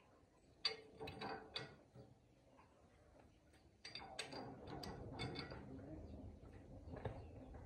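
Faint metallic clinks, knocks and rattling of parts being handled inside the steel drum housing of a large chopper: a few sharp knocks about a second in, then a busier run of clicking from about four seconds in.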